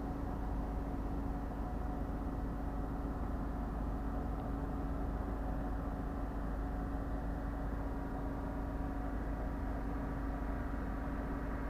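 Boat engine running at a steady drone, with a constant low hum.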